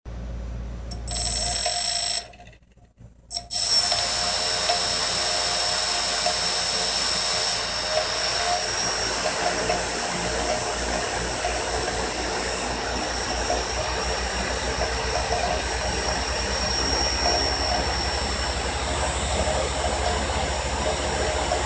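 Brushless motors of a multirotor tricopter, including its 1000kv tail motor, spinning propellers while the craft sits on the ground, with a steady high whine. The sound drops out briefly about two seconds in, then runs steadily.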